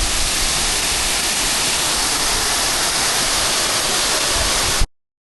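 Waterfall's steady rush of falling water, loud and even. It cuts off abruptly to dead silence near the end.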